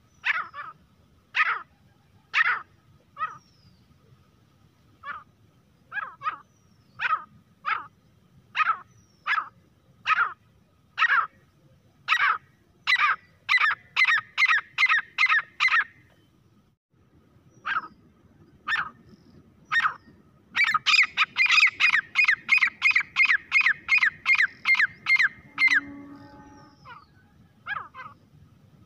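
Grey francolin calling: short sharp notes repeated about once a second, quickening to two or three a second, then after a short pause a fast run of about four a second that breaks off near the end.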